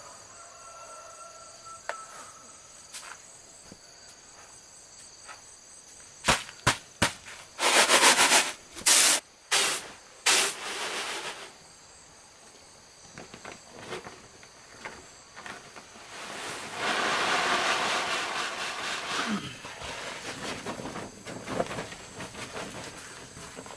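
Insects, crickets or cicadas, chirring steadily and high-pitched. About six seconds in come a few sharp clicks, then several loud noisy bursts of about a second each, and later a longer stretch of noise lasting two or three seconds.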